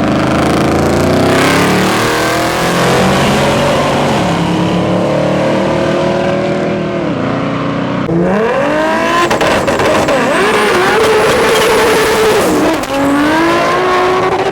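Drag-race car engine revving hard in a burnout: the pitch climbs for several seconds, drops away about seven seconds in, then climbs again.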